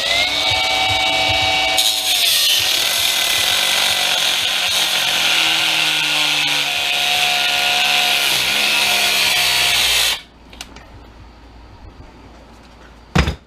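Battery-powered cutoff wheel spinning up with a rising whine, then cutting into the wiper assembly's aluminum for about eight seconds, its pitch sagging under load, before stopping abruptly about ten seconds in. A single sharp knock near the end.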